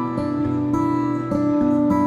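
Background music: acoustic guitar playing a gentle run of sustained notes.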